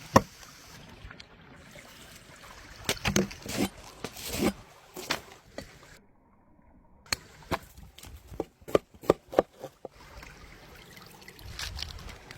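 Kitchen food-preparation sounds: scattered knocks and taps, then a quick run of about eight sharp knocks after a brief total silence, typical of chopping on a board.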